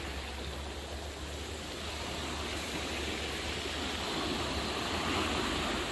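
Sea waves washing onto a stony beach: a steady rush of surf that swells slightly midway. A low rumble of wind on the microphone runs underneath.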